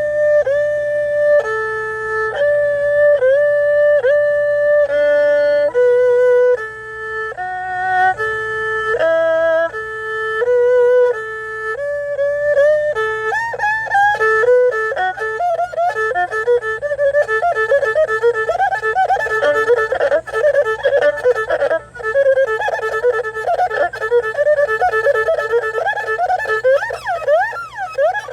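Solo erhu: long held notes joined by slides, then fast trills and rapid runs, with quick sweeping glides up and down near the end.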